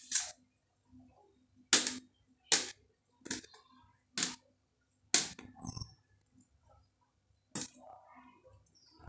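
A knife slicing a halved avocado held over a plastic bowl: about seven sharp, irregular clicks and knocks as the blade cuts and the slices land.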